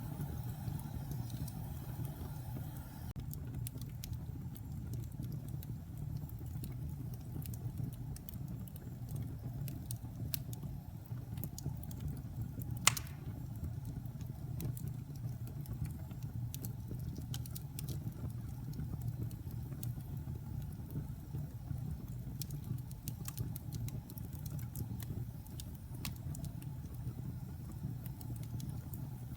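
Wood logs burning in a fireplace: a steady low rumble of the fire with scattered small crackles and one loud pop about halfway through.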